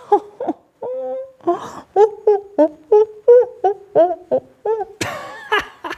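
A performer's voice imitating monkey chatter: a quick run of short hooting, hummed syllables, about four a second, some sliding upward in pitch, followed by a breathier burst near the end.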